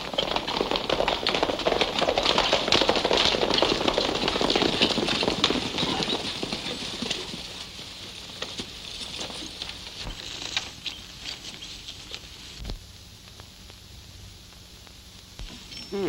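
Hoofbeats of a group of horses galloping past, a dense rapid clatter that is loudest over the first several seconds and then fades away.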